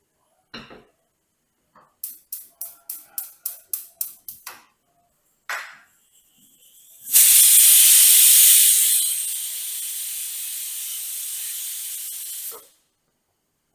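A quick run of about nine sharp clicks, then a loud hiss of escaping steam for about five seconds, strongest at first, then steadier, and cutting off suddenly.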